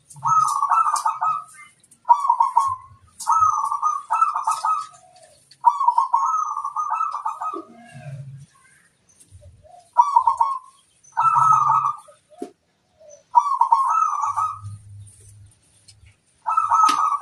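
Zebra dove (perkutut) cooing: a run of short, rolling coo phrases, one every second or so, with a longer pause about eight seconds in.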